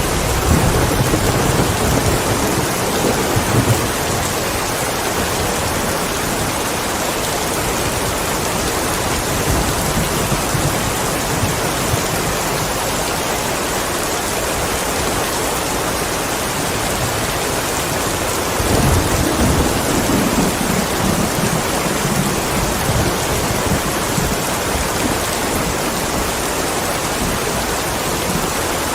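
Steady rain, with low rumbles of thunder near the start and again about two-thirds of the way through.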